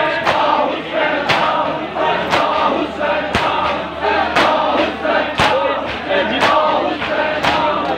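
A large crowd of men chanting a noha in unison, with a sharp collective slap of hands on bare chests (matam) about once a second, in time with the chant.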